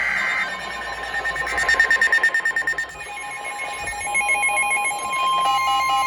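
Emergency Alert System tones for a severe thunderstorm warning. A burst of digital header tones stops about half a second in. Then comes a rapidly pulsing tone, and from about halfway a steady alert tone with beeping tones over it.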